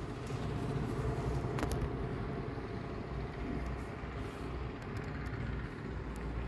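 Steady low background rumble, with a faint click about a second and a half in.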